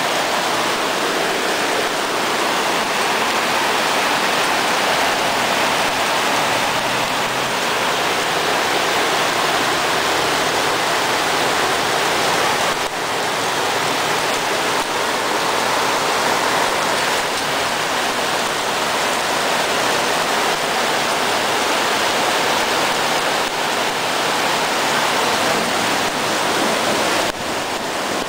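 Heavy tropical rain pouring down, a loud, steady, even hiss of the downpour.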